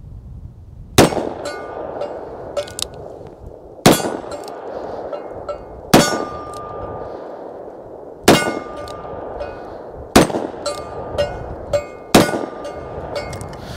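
Six shots from a Henry Big Boy .357 revolver, about two seconds apart. Each is followed by a short metallic ringing and a few smaller clangs.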